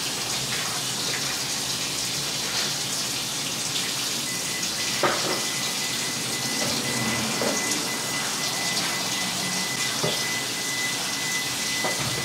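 Kitchen sink tap running steadily, with a few light knocks of bottles and cabinet doors, and a thin steady high tone joining about four seconds in.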